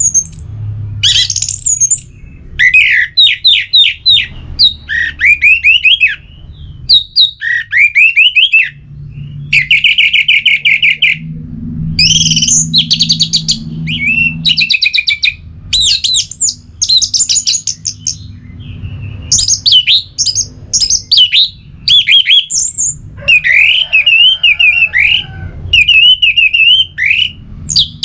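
Orange-headed thrush singing: a loud, varied song of short whistled phrases and rapid trills, one phrase after another with brief pauses between them.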